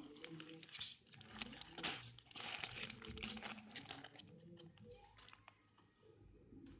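Faint crinkling and rustling of packaging being handled, with irregular crackles and small clicks.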